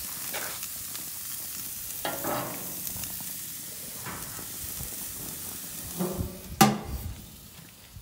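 Pork chops sizzling on the grates of a Char-Broil Commercial Series gas grill, a steady hiss. Near the end the grill's metal lid is shut with one sharp clank, and the sizzle falls away.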